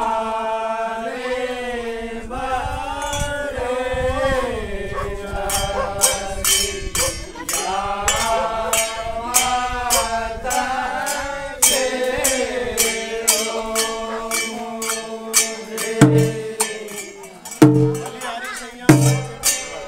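A group of men sings a Holi folk song together, with sharp percussion strikes keeping a beat about twice a second from around five seconds in. Near the end a drum comes in with heavy beats.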